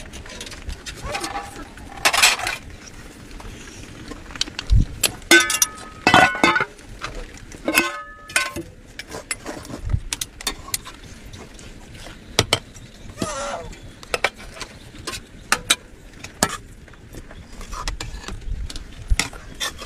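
Metal ladles and spoons clinking and scraping against steel cooking pots and plates as rice and curry are served, a string of irregular clicks with a few short metallic rings.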